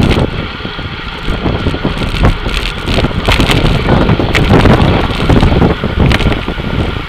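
Wind buffeting the microphone of a Replay XD action camera riding in a pack of racing road bikes, a loud, uneven rumble, with irregular knocks and rattles from the bike and road running through it.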